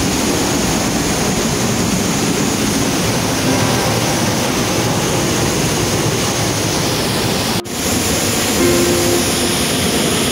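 Giessbach Falls pouring down right beside the walkway behind the falling water: a loud, steady rushing of water, broken by a brief dropout about seven and a half seconds in.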